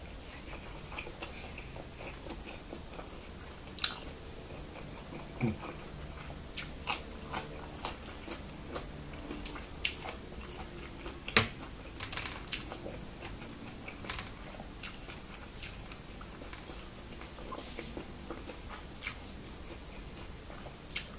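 Close-up chewing of a mouthful of food, with scattered sharp crunches and mouth clicks, the loudest about 4 and 11 seconds in and again near the end.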